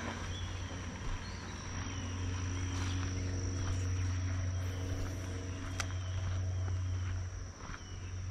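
Insects droning in a steady high-pitched trill, with a few faint short bird chirps and a low steady hum underneath.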